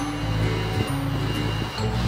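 Bass-heavy music played through an ELAC AJ-1020 10-inch active subwoofer, a run of sustained low bass notes that change pitch every second or so.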